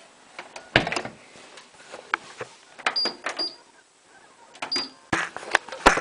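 Irregular clicks and knocks from handling the door of a Hotpoint Ultima WT960 front-loading washing machine, with a sharp clunk just before the end as the door is pushed shut.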